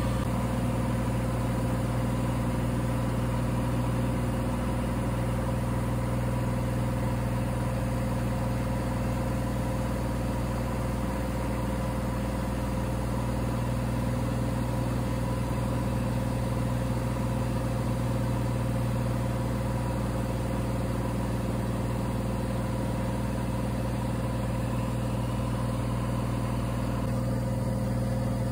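Cessna 182's piston engine and propeller droning steadily in cruise flight, heard from inside the cabin.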